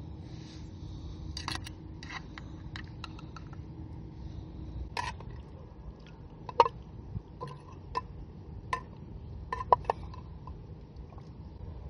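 Scattered light clinks and taps of metal cutlery and cookware, some ringing briefly, over a low steady rumble.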